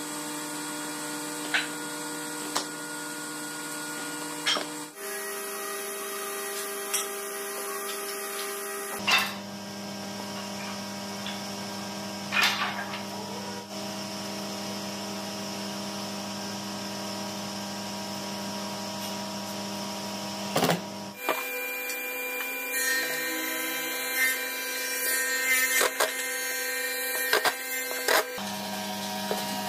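A steady hum of held tones that changes pitch abruptly every few seconds, with scattered knocks of pine boards being handled. In the last third come dense short bursts from a cordless Makita impact driver driving screws.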